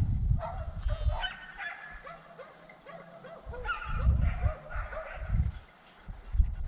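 Pack of hunting dogs yelping and baying, many short rising and falling cries overlapping, the hounds giving voice on a wild boar's trail. Low rumbles underneath at the start and again about four to five seconds in.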